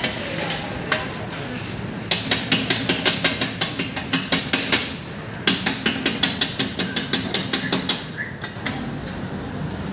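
Metal spatula striking a steel griddle in quick, even taps, about six a second, in two runs of a few seconds each with a short break between.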